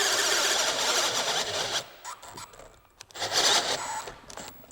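Bosch 12-volt drill driver boring a 1-inch auger-tip bit into lumber, the bit chewing through the wood under heavy load. The drilling stops about two seconds in, then comes again in a short burst about three seconds in.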